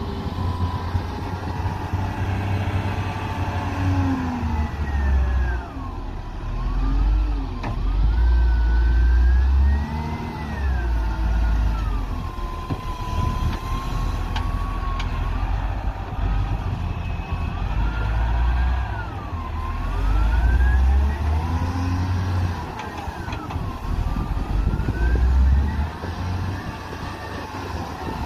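Caterpillar wheel loader's diesel engine revving up and down as it works, scooping sand and tipping it into a dump truck, with a whine that glides up and down in pitch several times.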